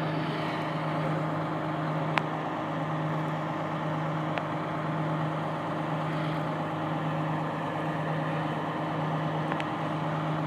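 A heavy diesel engine idles steadily with a low, even hum, from the recovery low-loader's tractor unit. A sharp click comes about two seconds in, and two fainter clicks follow later.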